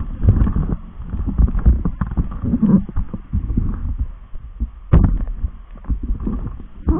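Irregular low thumps and rumbling from a phone's microphone being handled and rubbed while it is carried about, with a sharper knock about five seconds in.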